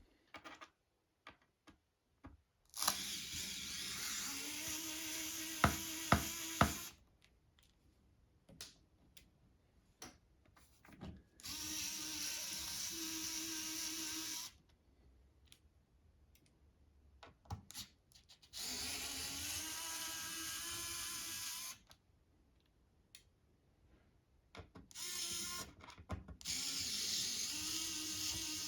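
Small cordless power driver running in four separate bursts of about three to four seconds each, its pitch rising briefly as each run starts, with small clicks and taps between runs as it works the screws in a MacBook Air.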